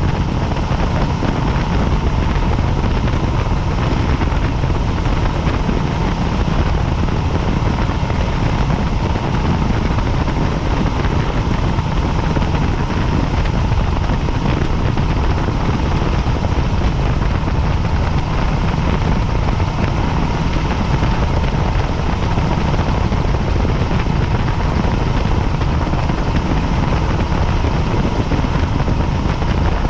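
Helicopter in flight, heard from on board: a steady, dense rotor and engine noise, heaviest in the low end, with a faint steady whine on top.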